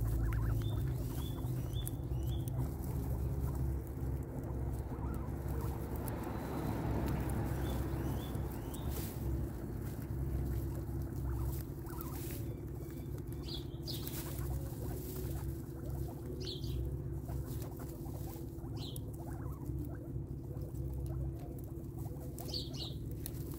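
Guinea pigs chewing fresh vegetables and fruit: continuous crunching and small crackly clicks, with a few short high chirps through it.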